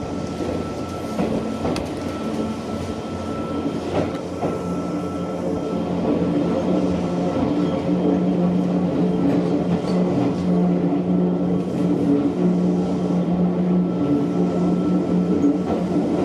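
Mizuma Railway electric train running along the track, heard on board: a steady low hum over rumbling wheel noise, with occasional sharp clicks of the wheels over rail joints. The hum grows a little louder about six seconds in.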